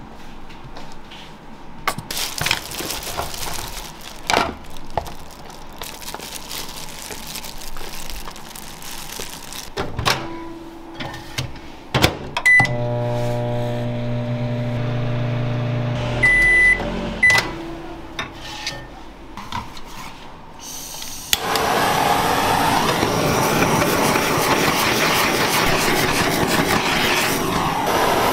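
A microwave oven beeps, runs with a steady hum for a few seconds and beeps again. In the last seven seconds a handheld butane torch burns with a loud, steady hiss.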